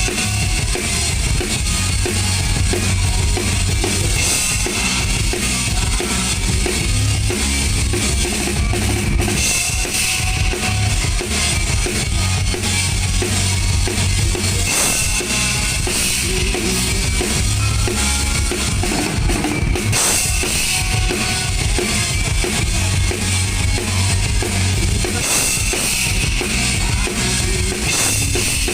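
Drum kit played continuously, kick drum and snare, during a rock band's sound check.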